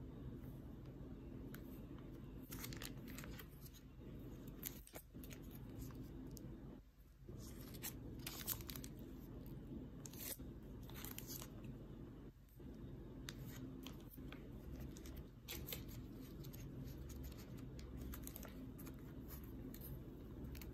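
Banknotes in clear plastic sleeves being handled and leafed through: repeated short crinkles and rustles of plastic and paper, over a steady low hum.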